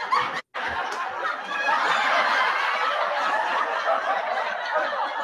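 An audience laughing, many voices at once. It cuts in abruptly about half a second in, after a brief silent gap, and carries on steadily.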